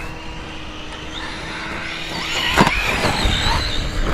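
Brushless motor of a VKAR Racing Bison V2 RC truggy whining, rising and falling in pitch as it speeds up and slows, with one sharp knock about two and a half seconds in.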